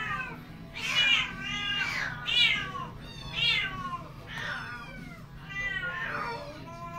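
Champagne Burmese kittens meowing over and over, about one high meow a second, most calls falling in pitch.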